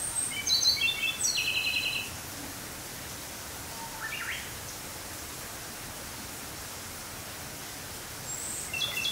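Ryukyu robin singing. A phrase of high, thin notes drops into a fast trill over about two seconds, a few short quieter notes follow around four seconds in, and the next phrase begins near the end, all over a steady background hiss.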